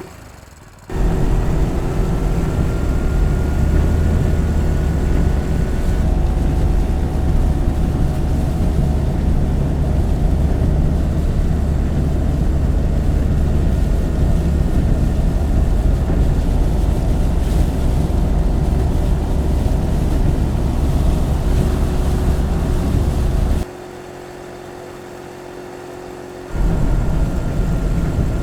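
Steady low rumble of a vehicle driving, engine and road noise with a faint whine above it. Near the end it gives way for about three seconds to a quieter sound without the rumble, then comes back.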